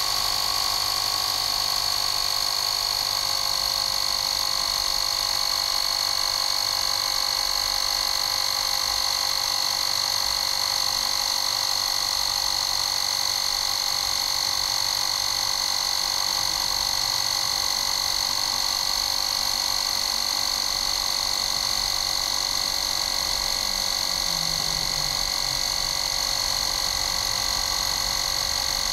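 Bosch EasyPump 3.6 V cordless mini compressor running continuously while inflating a bicycle tyre, a steady high-pitched buzzing whine as the tyre pressure climbs.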